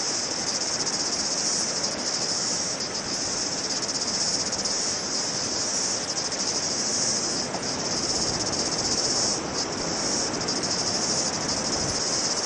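A steady, high, shrilling chorus of cicadas, continuous throughout, over an even rushing noise.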